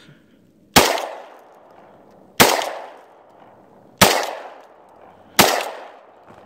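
Vepr-12 Molot semi-automatic 12-gauge shotgun fired four times, about a second and a half apart. Each shot is a sharp bang whose echo trails off over about a second.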